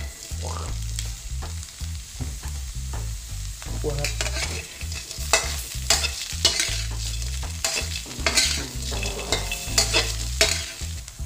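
Silkworm pupae poured into a hot, dry, salted wok and stirred, sizzling as they dry-roast, with a spatula scraping and clattering against the pan, more often from about four seconds in. A low rumble runs underneath.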